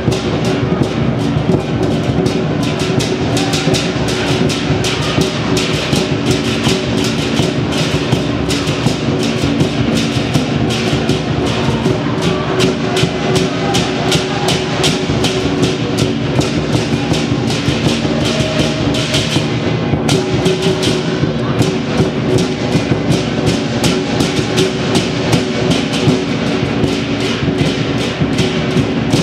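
Chinese lion dance percussion: a large lion-dance drum beaten in a fast, unbroken rhythm with clashing hand cymbals, the metal ringing on between strikes.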